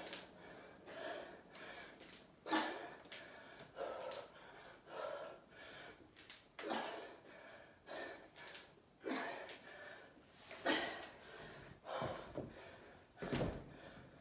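A woman breathing hard from exertion, with a sharp gasping breath every second or two in time with her dumbbell squat reps, and a low thud near the end.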